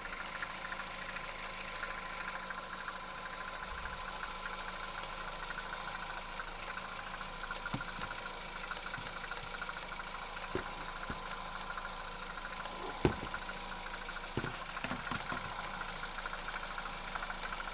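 Citroën C4 Picasso's 1.6 THP turbocharged four-cylinder petrol engine (EP6DT) running steadily at idle, with a fast, even ticking over the running sound. One sharp click about three-quarters of the way through.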